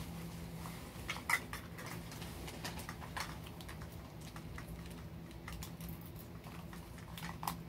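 Scattered light clicks and rustles of small plastic toy capsules and miniature packages being handled and pried open, over a faint steady low hum.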